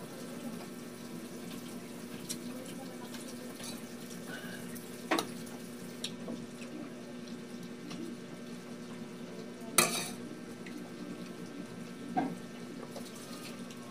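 A person eating noodles by hand from a ceramic bowl: soft mouth and eating noises over a steady low hum, with three sharp clicks or knocks about five, ten and twelve seconds in, the one near ten seconds the loudest.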